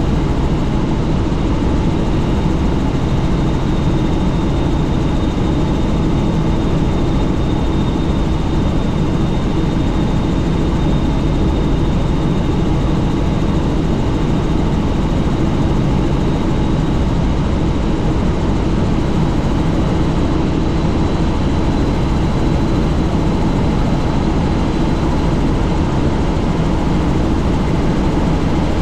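Helicopter in flight, heard from on board: steady, loud rotor and engine noise with a constant high whine above it.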